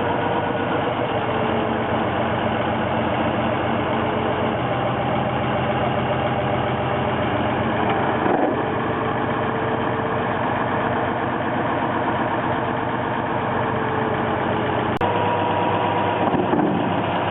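Farmall tractor engine running steadily at idle, with an abrupt change in its sound about fifteen seconds in.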